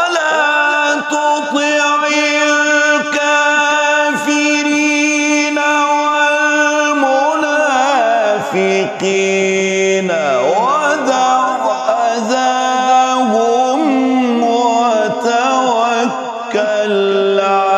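A man's unaccompanied voice chanting Quran recitation in the melodic tajweed style. It starts a phrase on one long held note for about seven seconds, then dips lower and moves through gliding, wavering turns of melody.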